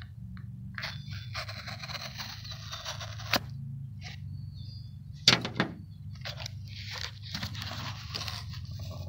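A knife slitting the packing tape along a cardboard box, in rasping strokes, with a sharp knock a little over three seconds in and a louder double knock a couple of seconds later. Then the cardboard lid is pulled open.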